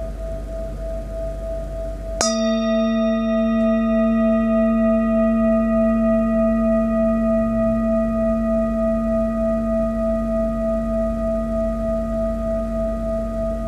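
Metal singing bowl struck with a wooden mallet about two seconds in, then ringing on with a strong low hum and several higher overtones, the highest fading first and the tone wavering slowly. Before the strike, a single steady tone from the bowl's earlier ring is still sounding.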